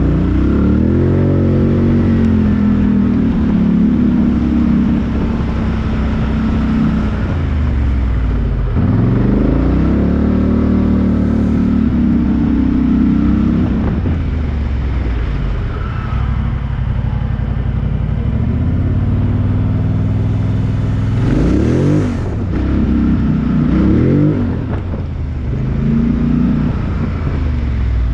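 Off-road 4x4's engine running under load and revving in repeated surges, each rise in revs settling back a few seconds later, as the vehicle works its way up a rock step.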